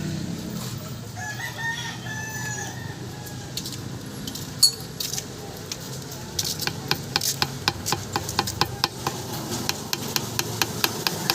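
A rooster crowing once, about a second in. Later comes a quick regular run of sharp clicks, about four a second, through the second half.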